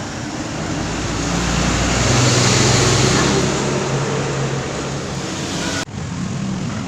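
Motor vehicle engine and road noise, growing louder about two seconds in and then easing off, broken by a sudden brief dropout near the end.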